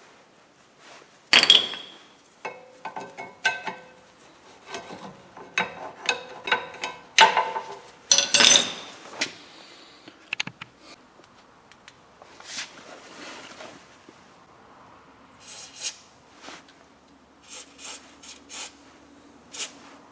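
Metal tools and brake parts clinking, knocking and scraping as they are handled, in an irregular run of sharp clicks with some brief ringing. The knocks thin out in the second half to occasional clicks and rubbing.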